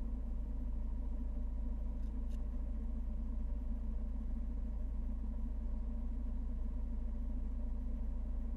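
Fiat 1200 Spyder's small four-cylinder engine idling steadily with the car standing still, a low, even hum.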